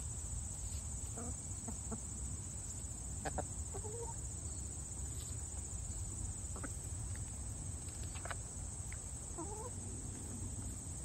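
Hens clucking now and then, short scattered calls every second or two, over a steady high buzz of cicadas.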